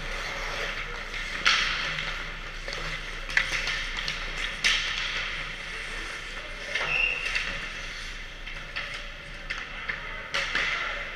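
Ice hockey practice sounds: skate blades scraping and carving on the ice, with several sharp clacks of sticks and pucks spread through, over a steady low hum of the rink.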